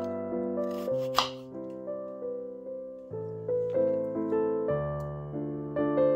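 Gentle background piano music, with a single knife stroke through a raw potato onto a wooden cutting board about a second in.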